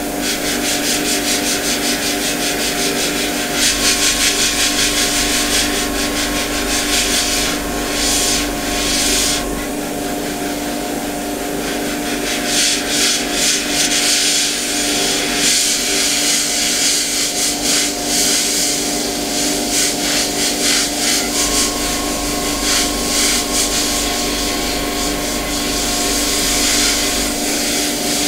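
Airbrush hissing as it sprays paint, the hiss swelling and easing as the trigger is worked, over a steady hum. A deeper motor hum comes on twice for about six seconds, about four seconds in and again past twenty seconds.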